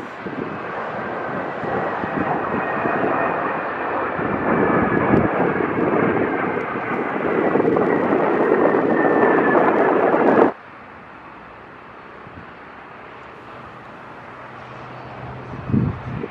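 Jet engine noise of a formation flypast, a large twin-engine jet with fighter jets, swelling to a loud rush with a faint, slowly falling whine. It cuts off abruptly about ten seconds in, leaving a much quieter steady rumble, with a brief low thump near the end.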